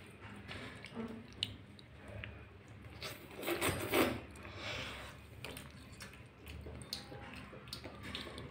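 A child eating instant noodles by hand: soft, scattered mouth and handling sounds, loudest about three and a half to four seconds in.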